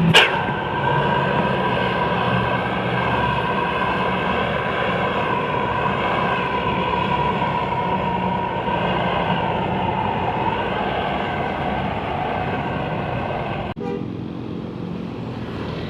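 The bus's multi-trumpet 'Pakistan'-style telolet air horn sounds a long held chord of several tones for about 14 seconds. The tones waver slightly and sag in pitch toward the end, then stop suddenly. Engine and road noise continue underneath.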